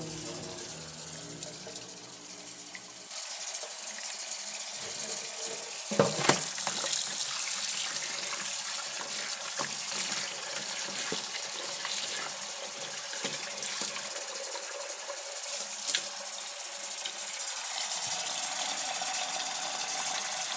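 Kitchen faucet running into a plastic container of cut sweet potato wedges in a stainless steel sink, with a hand stirring the wedges in the water; a couple of sharp knocks about six seconds in and another later. Background music plays under it for the first few seconds, then stops.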